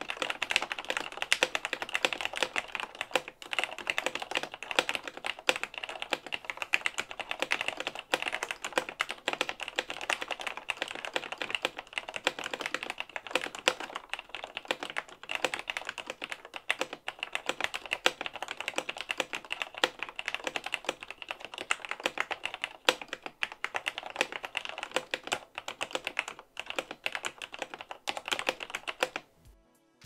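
Cherry MX Board Silent mechanical keyboard with a plateless PCB, lubed Gateron Clear linear switches in Cherry vintage black housings and thick dye-sub PBT keycaps, typed on fast and without a break. The keystrokes stop about a second before the end.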